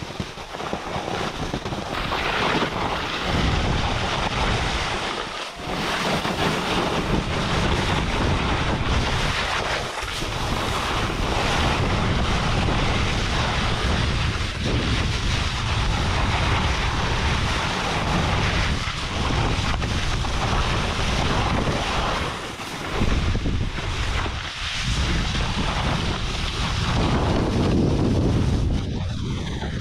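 Wind rushing over the camera's microphone while a splitboard slides and carves down a snow slope. It is a steady, loud rushing noise that dips briefly a few times.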